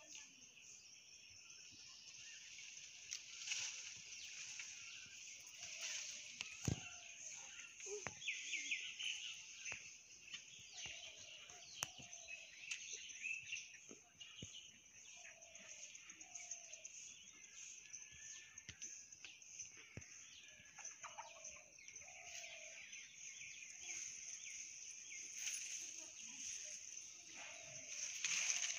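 Faint outdoor ambience: a steady high-pitched drone, with short animal calls scattered throughout and a few sharp clicks.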